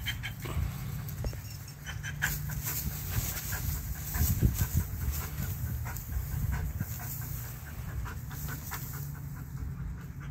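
Wolfdog panting close by, with scattered scuffs and clicks and a steady low rumble underneath.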